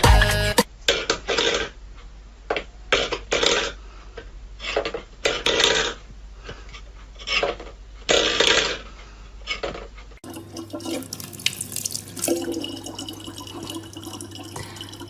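Stainless steel food bowls knocked about on a wooden floor by a cat, in a series of short clattering bursts. About ten seconds in, a tap starts running a thin, steady stream of water.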